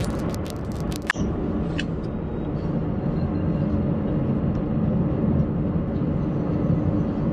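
A car driving along, with steady road and engine noise. In the first second there is a rapid run of sharp clicks, then a sudden jolt.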